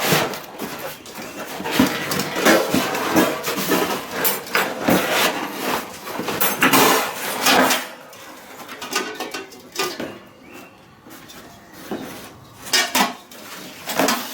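Metal parts of a Weber Smokey Joe grill clanking and knocking together while being pulled out of a cardboard box, with rustling of the packaging. The handling is busy for the first several seconds, then turns to a few separate clanks.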